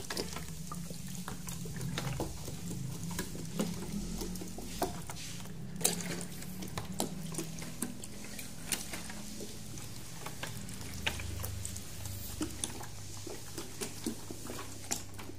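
Water trickling from a plastic bottle onto rockwool seed cubes in plastic trays, wetting the dry cubes, with many small scattered clicks and taps over a low steady hum.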